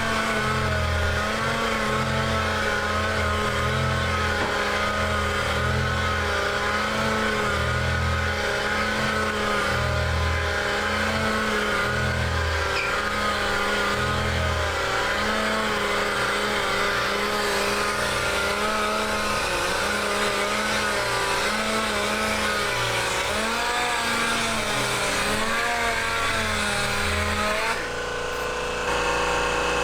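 Electric sander-polisher running steadily on the aquarium's glass, its pitch wavering and dipping as it is pressed and moved over the surface while scratches are sanded and polished out. The sound changes abruptly near the end.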